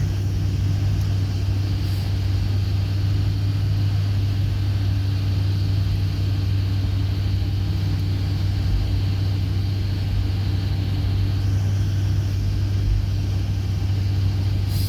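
Steady in-cabin drone of a car driving along: low engine and road hum with a constant hiss of tyres on the road.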